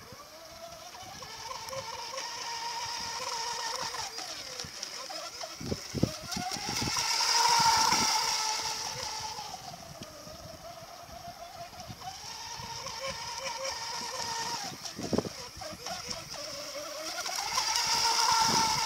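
Small RC mono racing boat's Tenshock brushless electric motor whining at speed, with the hiss of its spray. It passes close twice, about two-fifths of the way in and again at the end, its pitch rising as it comes near and dropping as it moves away.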